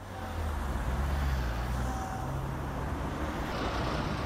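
City street traffic with a heavy diesel engine, the open-top double-decker tour bus, running low and steady close by as it drives past. A hiss joins in near the end.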